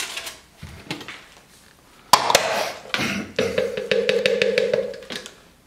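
Plastic blender jug being handled and twisted apart: two sharp clicks, then a drawn-out creak with rapid clicking over it for about a second and a half.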